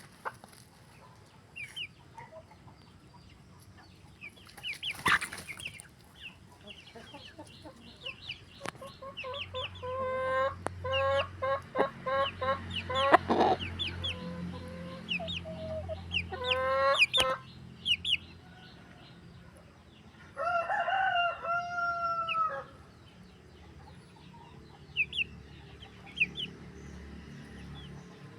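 Chickens clucking in a run of quick repeated notes about ten seconds in, then a rooster crowing once, a call of about two seconds, past the twenty-second mark. Short high chirps are scattered throughout.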